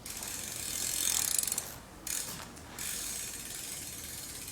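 BMX bike's rear hub ratcheting: a fast, even clicking of the freewheel pawls as the rear wheel spins or the cranks are turned. It runs in three stretches with brief breaks a little before two seconds and just under three seconds in.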